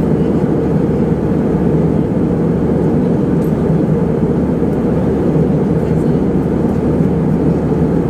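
Jet airliner cabin noise in cruise flight: the engines and the airflow over the fuselage make a steady, even low rumble heard from inside the passenger cabin.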